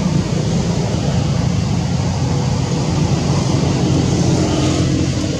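Steady low rumbling background noise with a faint hiss above it, unchanging and without distinct events.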